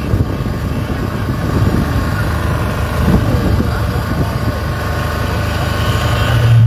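Steady engine and road noise of a large motorcycle convoy and the moving vehicle it is heard from, with faint voices mixed in; a strong low hum swells near the end.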